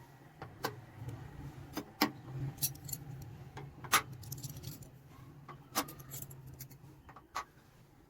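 Sharp metallic clinks and clatter of small metal parts being handled, a dozen or so separate knocks spread over several seconds, over a low hum that stops about seven seconds in.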